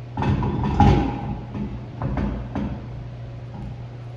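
A car wheel and tire being handled and fitted back onto the hub: a heavy scraping clunk about a second in, then two sharper knocks.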